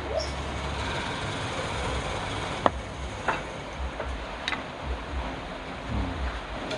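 Wood lathe running steadily, with a low rhythmic pulsing underneath and three sharp clicks near the middle.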